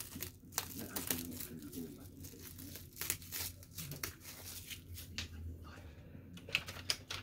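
Clear protective plastic film being peeled off the chrome parts of a new RC truck, crinkling and crackling irregularly as it comes away.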